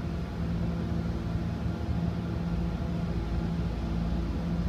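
A motor running with a steady low drone whose loudness wavers slightly, over a low rumble.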